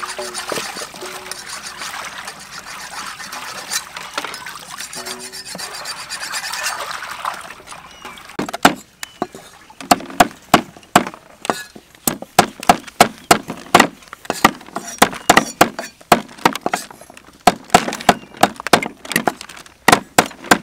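Raw chicken feet being washed by hand in a metal basin of water, sloshing and splashing. About eight seconds in, a cleaver starts chopping the chicken feet on a wooden chopping block in quick, irregular, sharp strokes.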